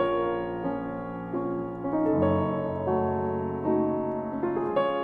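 Solo piano playing slow, sustained chords, a new chord about once a second.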